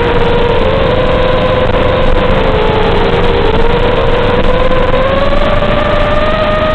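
Whine of an FPV quadcopter's 2204 2300KV brushless motors and propellers in flight on a 4S battery, over a steady loud hiss. The pitch dips a little partway through, then climbs and holds higher toward the end.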